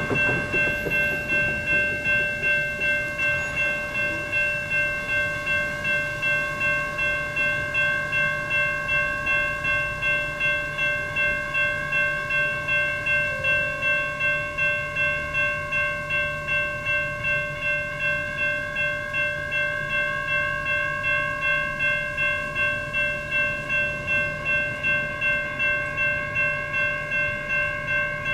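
Electronic railroad crossing bells (a Safetran Type 2 and a GS Type 1 e-bell) ringing in rapid, even strokes, a bright clanging tone with several pitches. The crossing is activated for an approaching or passing light rail train.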